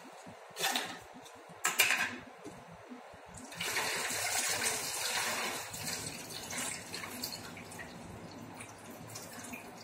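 Water being poured into a plastic toy water gun (pichkari) to fill it: two short clatters about one and two seconds in, then a steady pouring hiss that tapers off over the last few seconds.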